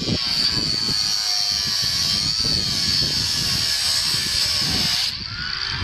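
Power tool cutting a siding panel: a loud, steady high-pitched screech over a whining motor whose pitch wavers under load. It cuts off suddenly about five seconds in.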